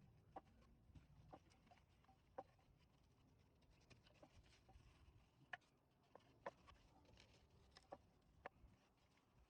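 Near silence with faint, irregular clicks and taps scattered through it.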